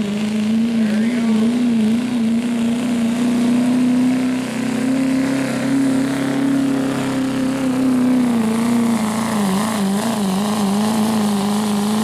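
Chevrolet Silverado's Duramax diesel engine running flat out under heavy load as the pickup pulls a weight-transfer sled. The engine note holds steady and wavers up and down briefly about a second in and again from about nine seconds.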